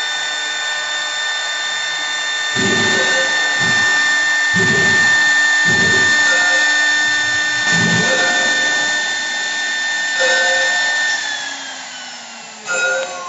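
CNC wood lathe running with a steady high-pitched motor whine over a rough cutting noise, with a few low thumps in the first half. Near the end the whine slides down in pitch as the machine slows.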